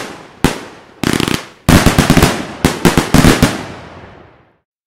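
Fireworks crackling: rapid strings of sharp pops come in several bursts, with a single bang about half a second in, and the densest crackle from about two to three and a half seconds in, then an echoing tail that dies away near the end.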